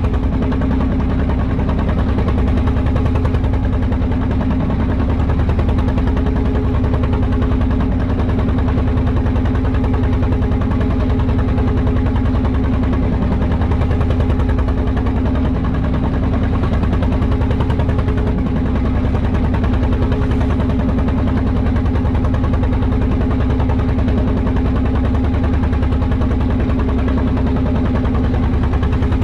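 Small wooden fishing boat's engine running steadily while the boat is under way, a constant drone with a fast, even beat.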